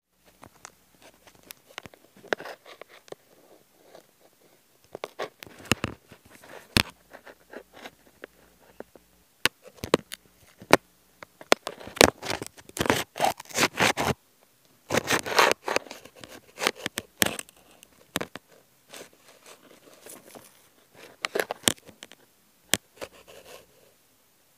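Handling noise on a phone's microphone: cloth rubbing and scraping against it, with irregular clicks and knocks that come thickest in two bursts about halfway through.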